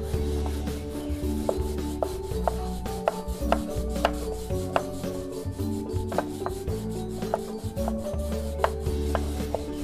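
Food being prepared by hand: coconut rasping on a metal grater at the start, then a knife chopping young jackfruit on a wooden board, with irregular sharp knocks about one or two a second.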